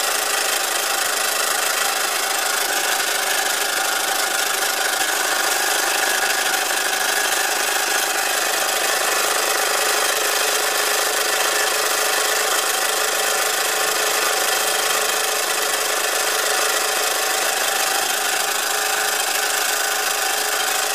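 1906 Fritz Neumeier toy steam engine running steadily under live steam: a continuous, smooth hissing whir with no rattle.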